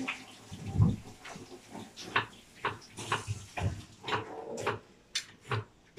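A scatter of short clicks and knocks from kitchen utensils and the frying pan at the stove, irregular and a few to the second.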